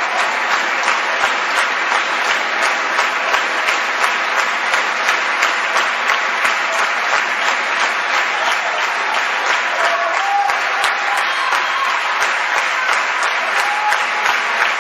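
Audience applauding steadily, many hands clapping at once in a dense, even patter.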